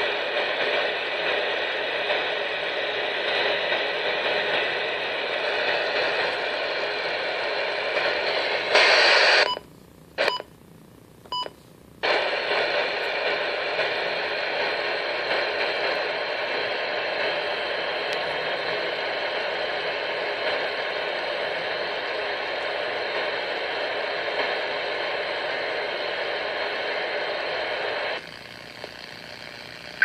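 Static hiss from a NOAA Weather Radio receiver's speaker, a steady hiss because its weather station has gone off the air, which the uploader believes came from a lightning strike to the transmitter. About nine seconds in the hiss swells briefly, then cuts out for about two and a half seconds with a couple of faint clicks before coming back. It falls lower near the end.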